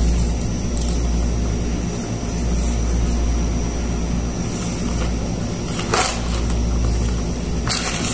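A steady low machine hum, with brief rustles from the black nylon fishing-rod bag and its strap being handled about six seconds in and again near the end.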